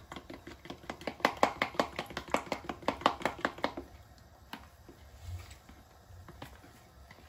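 Metal spoon stirring a thick mix of fine cornmeal and cold water in a plastic measuring jug to work out the lumps. It taps against the jug quickly and evenly, about five times a second, for the first three and a half seconds, then only a few scattered taps.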